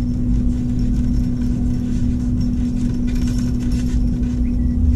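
A steady low machine hum with one constant tone over a low rumble, and faint light ticks about three seconds in.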